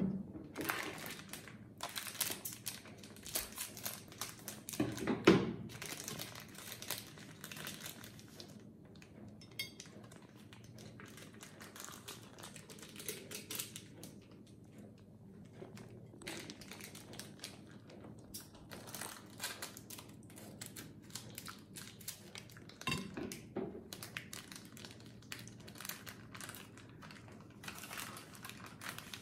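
Plastic food packet crinkling and rustling in the hands as it is squeezed and handled, with a couple of louder thumps.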